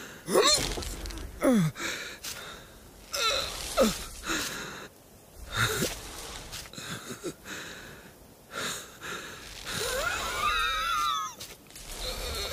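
A cartoon sheep's wordless voice: wheezy, breathy groans and sighs, with sharply falling cries about half a second and a second and a half in, and a long wavering cry near the end.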